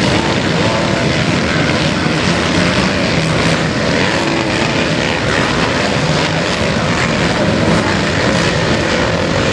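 Several motocross bikes' engines running on the dirt track, blending into one loud, steady engine drone.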